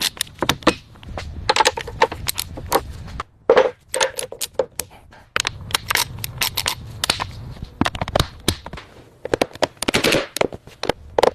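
A rapid, irregular run of sharp metallic clicks and clanks from tools working on metal car parts during brake installation, some clanks ringing briefly.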